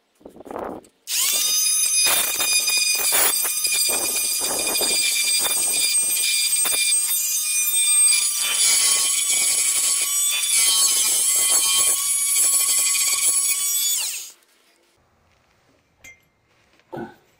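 Corded oscillating multi-tool running with a steady high whine, its blade scraping and chattering against a steel van chassis to take the paint off down to bare metal for an earth strap connection. It starts about a second in and stops suddenly about three seconds before the end.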